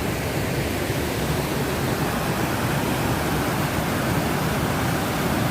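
River in spate rushing over the cascading waterfalls of Golitha Falls, a steady, loud roar of falling water.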